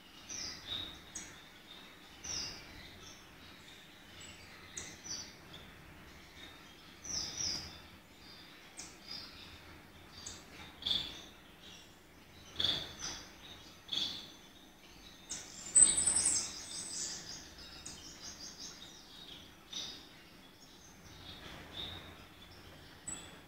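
Gouldian finches calling with short, high chirps scattered irregularly. About two-thirds of the way through there is a louder run of rapid high notes, the loudest moment.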